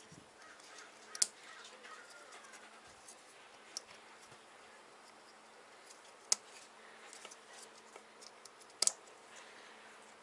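Light rustling and a few sharp clicks as an engine wiring harness is handled and pressed into place, four clicks in all, the last one doubled, over a faint steady hum.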